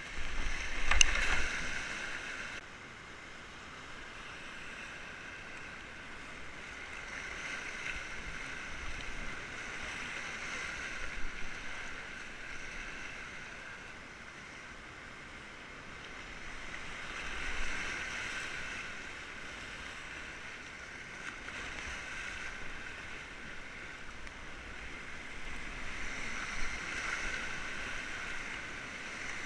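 Whitewater rapids rushing around a kayak, with paddle splashes and waves breaking over the bow, swelling and easing every few seconds as the boat runs the rapid. A loud splash comes about a second in.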